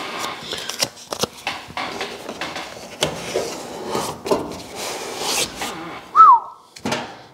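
Hands handling and rubbing the cardboard grille mock-up and its tape against the bare sheet-metal front end: rustling and rubbing strokes with many small clicks and taps, and a short falling squeak about six seconds in.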